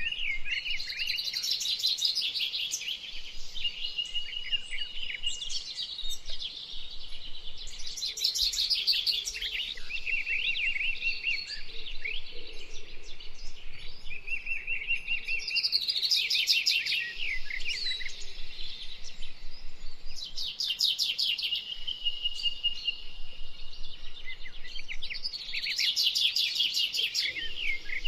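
A songbird singing repeated phrases every few seconds, each mixing quick trills and rapid notes with a held whistle.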